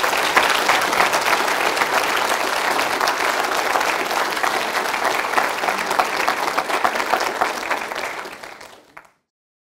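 Audience applauding steadily, a dense patter of many hands clapping. It tails off about 8 seconds in and then cuts off abruptly.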